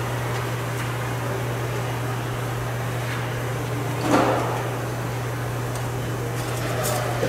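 A steady low hum with a single clunk about four seconds in, from a seat being fitted into a truck cab.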